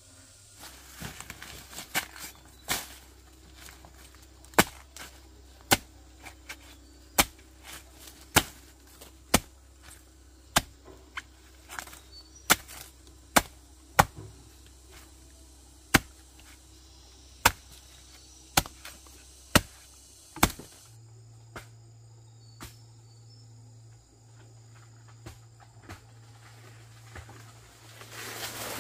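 Sharp chopping strokes, irregular at roughly one a second, for about twenty seconds, then a couple of lighter strokes.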